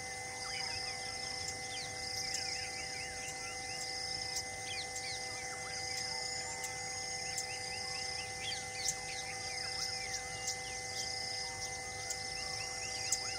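Forest ambience: many small birds giving quick downward-sweeping chirps, with a high insect-like pulse repeating about once a second. A faint steady hum of a few held tones runs underneath.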